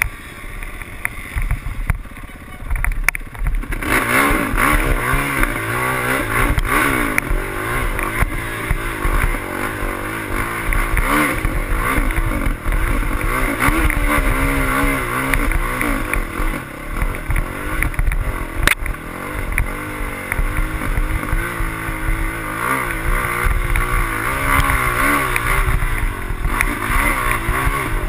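Dirt bike engine running as the bike rides, its pitch rising and falling with the throttle. The first few seconds are quieter with scattered clicks before the engine picks up about four seconds in, and there is one sharp knock a little past halfway.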